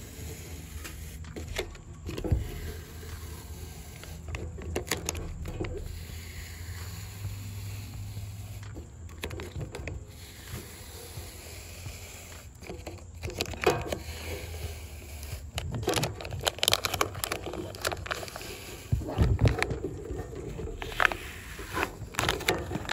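A water-soaked sticker being peeled off the side of a metal 50 cal ammo can: irregular scraping and crackling of the label as it lifts, with hand rubbing against the can, busier and louder in the second half.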